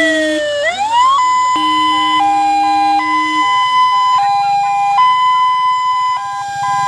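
Ambulance sirens: a wail that slides down and back up in the first second or so, then a two-tone hi-lo siren alternating between two pitches.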